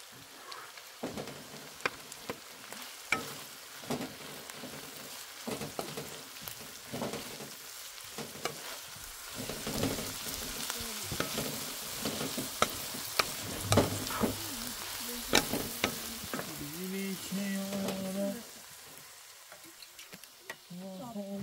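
Sliced onions and chopped greens sizzling in a frying pan on a gas stove, stirred with a wooden spatula that knocks and scrapes against the pan many times. The sizzle and knocking die down near the end.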